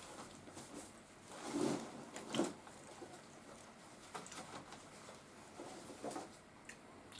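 Faint rustling and soft knocks of a hand rummaging through a woven straw basket, with two louder bumps about two seconds in and a few light clicks later.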